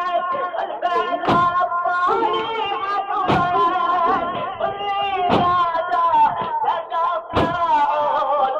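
Arabic religious chant, a sung voice holding a wavering melody with no clear words, kept in time by a deep thump about every two seconds.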